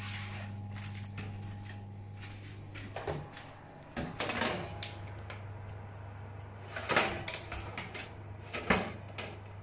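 Metal baking tray knocking and scraping against the oven rack as it is pushed into an open oven: a handful of separate clatters over a steady low hum.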